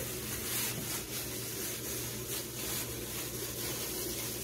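Thin plastic bag crinkling and rubbing as flour-coated chicken pieces are worked in it by hand, over a steady low hum.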